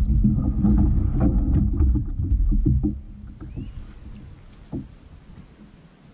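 Nucanoe Frontier 12 kayak's plastic hull being dragged up onto a gravel shore: a loud low grinding rumble with scattered clicks of stones. It stops about three seconds in, leaving a few faint crunches of footsteps on gravel.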